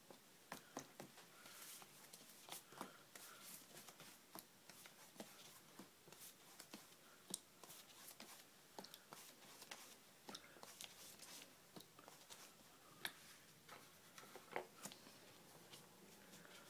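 Faint, irregular clicks, taps and short scratchy sounds of a paintbrush being handled and stroked across wet watercolour paper, a few taps louder than the rest.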